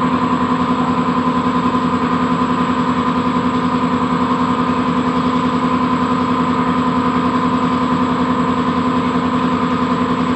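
A motor running steadily at a constant speed, an even hum with a fast, regular pulse.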